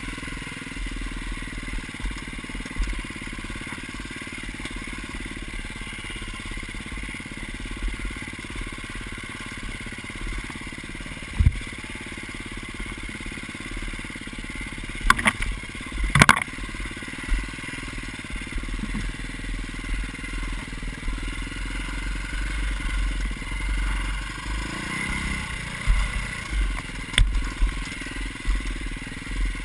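Dirt bike engine running under changing throttle on a rough trail, with low rumble of buffeting on the bike-mounted microphone. Several sharp knocks from the bike jolting over bumps, the loudest about 11 and 16 seconds in.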